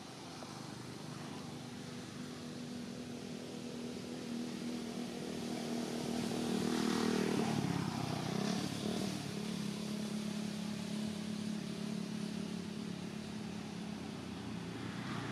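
A motor vehicle's engine running, growing louder to a peak about halfway through, with a brief dip in pitch just after, then holding steady.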